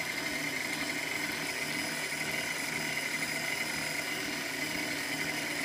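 KitchenAid stand mixer motor running steadily, driving its food grinder attachment: an even hum with a higher whine over it, as raw turkey meat is ground and starts to come out through the grinder plate.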